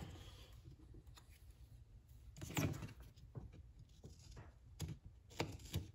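Faint handling noises from a loose half of an impact driver's glass-reinforced nylon (PA6) housing being picked up and turned over in the hands: a short rustle about two and a half seconds in, then a few light clicks and taps of plastic near the end.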